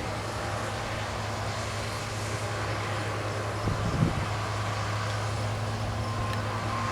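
Engine of a harvest machine running steadily at a constant speed, a low even hum.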